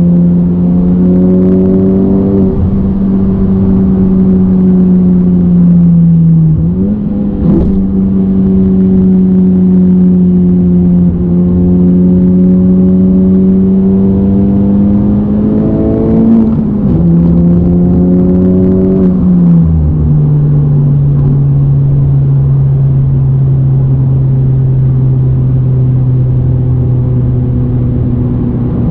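Honda Civic Type R FK8's turbocharged four-cylinder, heard from inside the cabin through a J's Racing 70RS cat-back exhaust: a loud droning tone that climbs slowly in pitch under light throttle. The pitch drops at gear changes about two and a half, seven, seventeen and twenty seconds in, and after the last change it holds a steady lower drone while cruising.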